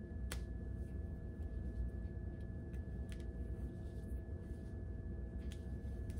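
Quiet room tone: a steady low hum with a faint steady high-pitched tone, broken by a few soft clicks.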